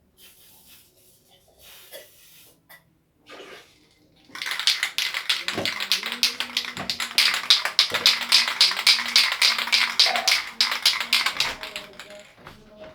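Rapid, rhythmic tapping, several sharp light strikes a second, starting about four seconds in and stopping shortly before the end.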